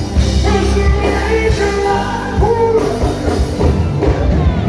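Live band music with a heavy bass line and drums, and a voice singing over it.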